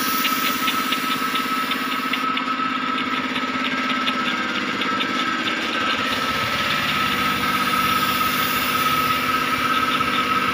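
Air compressor running steadily to feed a spray gun spraying wood polish, with a steady whine and a faint rapid ticking over it.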